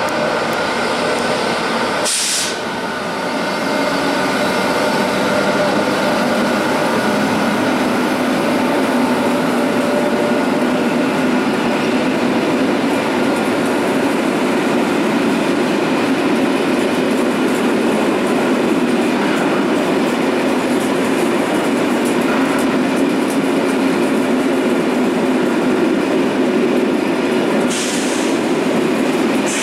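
Railway train running past on the track: a loud, steady rumble of rolling stock on rails. Two short, sharp high-pitched bursts come through, one about two seconds in and one near the end.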